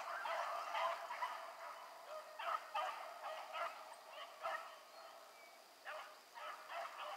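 A pack of rabbit hounds baying in irregular bouts of short, repeated barks, giving tongue as they run a rabbit.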